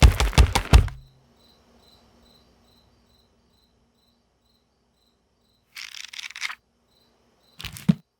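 Crisp rhythmic paper taps and snaps that stop about a second in. Then a faint, high chirping repeats about two and a half times a second, and a short rustle of paper comes about six seconds in.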